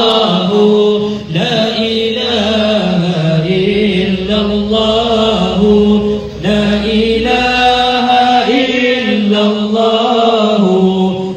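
Voices chanting Islamic selawat, praise of the Prophet, in long drawn-out melodic lines, breaking briefly for breath about a second in and again around the middle.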